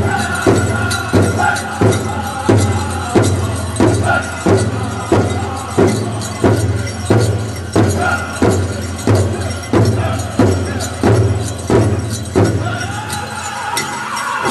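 A powwow host drum group striking a large drum together in a steady beat, about three beats every two seconds, with high-pitched singing. The drumbeat stops near the end while the singing carries on.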